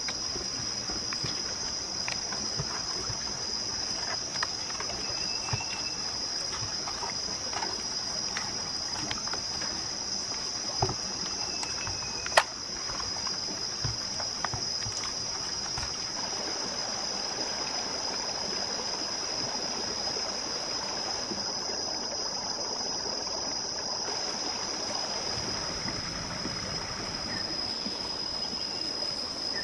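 Steady high-pitched chorus of insects. Small clicks and knocks from hands rubbing chili paste into a raw duck in a metal pan are scattered over it, with one sharp click about twelve seconds in.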